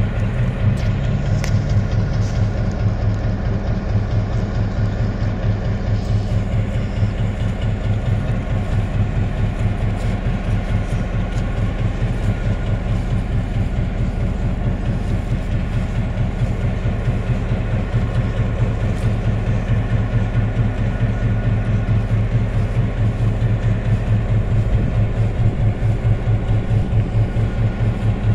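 EMD E8 diesel locomotive idling at a standstill: its twin 567-series diesel engines give a steady low throb with an even pulsing beat.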